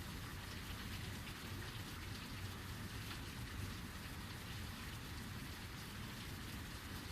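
Heavy rain falling steadily, an even unbroken hiss of a downpour with no thunderclap.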